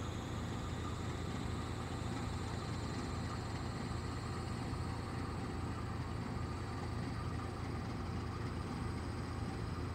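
Diesel freight locomotive idling: a steady low engine hum with a faint high whine above it.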